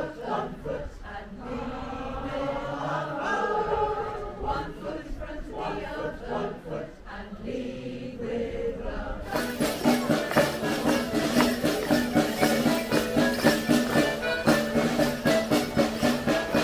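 A mixed community choir singing unaccompanied. About nine seconds in it gives way abruptly to louder folk dance music with steady held chords, over a run of sharp, regular clacks from Morris dancers.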